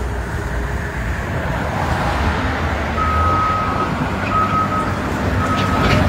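Diesel engine of a Caterpillar 950K wheel loader running under load as it works its bucket, with a backup alarm starting to beep about halfway through in evenly pitched pulses.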